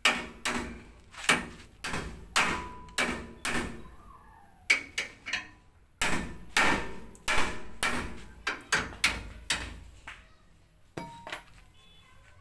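Hammer blows on the steel of a tricycle sidecar near its wheel: about twenty sharp strikes at roughly two a second, in runs broken by short pauses, with one last blow near the end. Each strike has a brief metallic ring.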